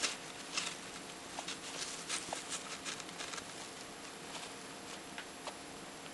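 A hamster digging and rooting in wood-shaving bedding: irregular rustles and small crackles of the shavings being pushed about.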